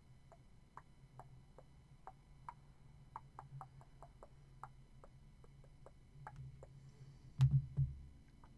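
Faint, irregularly spaced light clicks over a low steady hum, then a soft, louder thump near the end.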